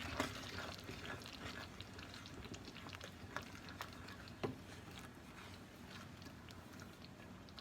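Pot of jam cooking on the stove: faint bubbling and small pops with scattered light clicks and scrapes of a spoon stirring, and one sharper knock about four and a half seconds in.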